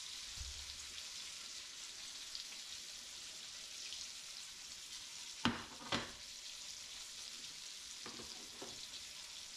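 Breaded chicken fillets frying in grease in a cast-iron skillet: a steady sizzle. Two sharp clicks of a utensil on the pan about five and a half and six seconds in.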